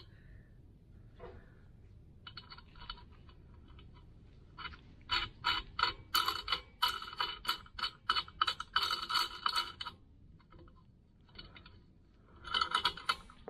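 Hand file scraping back and forth on steel, in short runs of quick strokes, about three a second, the longest run in the middle, while a rough edge is filed clean.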